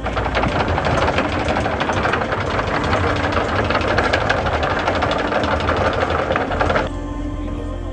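A small engine running with a fast, rattling beat, stopping suddenly about seven seconds in.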